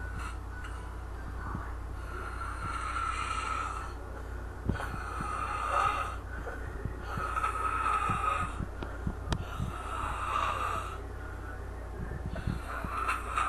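A woman snoring in her sleep: about five rasping snoring breaths, evenly spaced about two and a half seconds apart.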